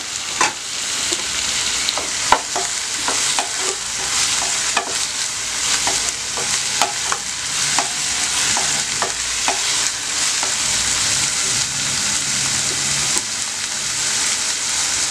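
Chopped onions, green chillies and freshly added tomatoes sizzling in oil in a non-stick pan, with a spatula stirring and knocking against the pan in a string of light clicks, most of them in the first ten seconds.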